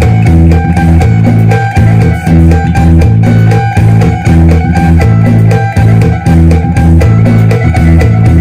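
Electric guitar played in Isan phin sing style: a fast picked melody of quick repeated notes over a pulsing low bass pattern.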